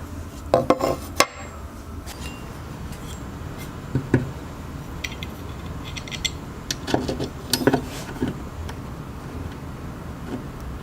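Knocks and short clicks of hard parts being handled and fitted together while assembling a Creality CR10S 3D printer, likely mounting the filament spool holder on the controller box. The sounds come in scattered clusters over a low steady hum.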